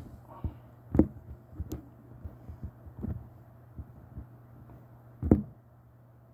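Irregular low thumps and knocks over a steady low hum, the loudest about a second in and again about five seconds in.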